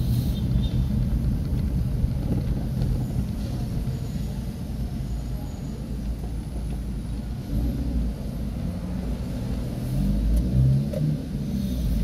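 Car engine and road noise heard from inside the cabin while driving: a steady low rumble, with a brief rise in engine note about ten seconds in.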